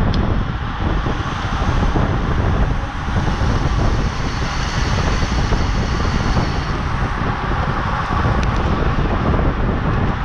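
Wind buffeting the microphone of a camera on a bicycle riding at race speed: a steady, heavy rumble, with a faint high whine through the middle.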